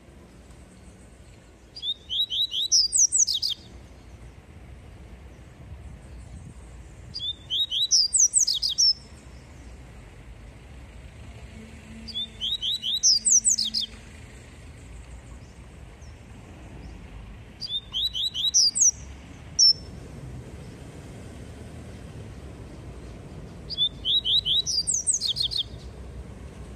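Caged papa-capim seedeater singing its 'tui tui' song: five short phrases of rapid, high, repeated notes, each lasting about a second and a half and coming every five to six seconds, over a steady low background hum.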